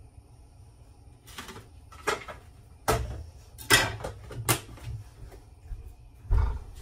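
Kitchen handling clatter: a series of about six sharp knocks and clunks as dishes, a plate and utensils are picked up and set down on the counter, the loudest about midway.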